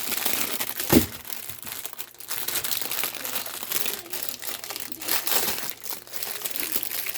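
Food packaging crinkling and rustling continuously, with a single knock about a second in.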